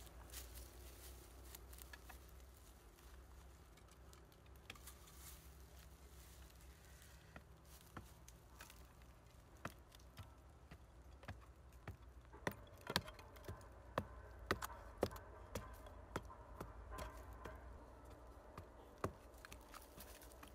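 Irregular sharp knocks and taps that come thickest and loudest a little past the middle, over a faint low steady hum.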